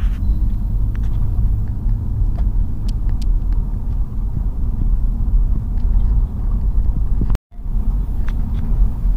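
Car driving, heard from inside the cabin: a steady low rumble of engine and road noise, with a few faint ticks. The sound cuts out briefly a little over seven seconds in.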